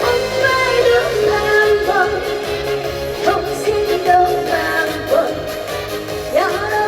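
Female trot singer singing live over an upbeat band backing track with a steady beat.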